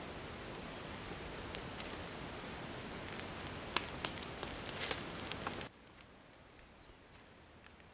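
Small open fire of dry twigs and leaves burning with a steady hiss and sharp crackles, mixed with footsteps rustling in dry leaf litter; the sound cuts off suddenly about three-quarters through, leaving only a faint hiss and a few ticks.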